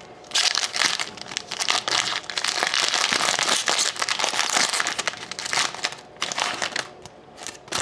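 A foil trading-card pack wrapper being torn open and crinkled by hand: a dense crackling rustle of thin foil that starts just after the beginning and thins out near the end.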